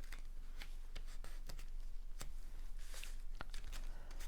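Cardstock pieces being handled and folded by hand: scattered light clicks, taps and rustles of paper.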